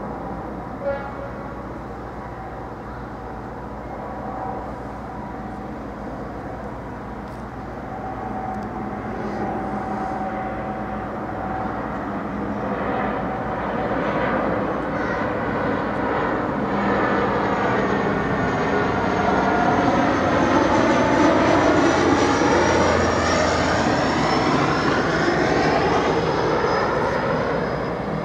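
Bombardier Dash 8 Q400 turboprop on approach with its landing gear down, the drone of its twin turboprop engines and propellers growing steadily louder as it passes low overhead. It is loudest about three quarters of the way through, and a high whine slides slowly down in pitch towards the end.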